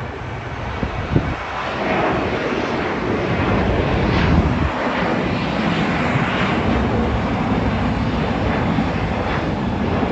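Alaska Airlines Boeing 737 jet airliner climbing out after takeoff. Its engine noise builds over the first two seconds, then holds loud and steady with a deep rumble.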